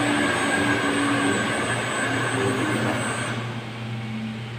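Electric motors of vertical multistage booster water pumps running with a steady hum and whine. The sound becomes quieter and duller about three seconds in.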